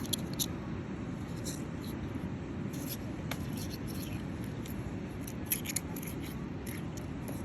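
Knife blade scraping and clicking against a mussel shell in short, irregular strokes while prising the mussel open and off the shell, over a steady low background rumble.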